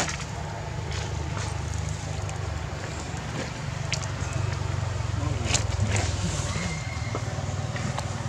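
A baby monkey's hands and mouth knocking and rubbing on the camera, making a few sharp clicks over a steady low rumble.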